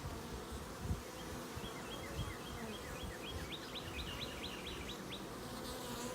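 Honey bees buzzing in a steady hum around an opened, crowded hive. A bird sings a quick series of repeated chirps from about a second in until near the end.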